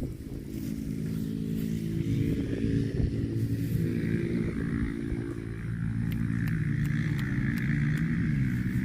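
An engine running steadily, its pitch dipping briefly near the end.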